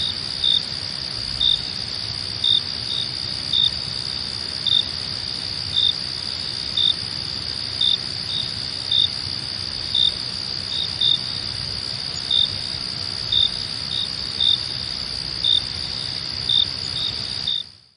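Crickets chirping at night: a steady high trill, with separate short, louder chirps about once a second. The sound cuts off just before the end.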